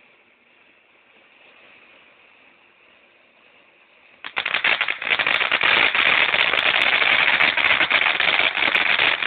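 Fireworks going off in a loud, dense, very rapid crackle of pops. It starts suddenly about four seconds in after a faint hiss.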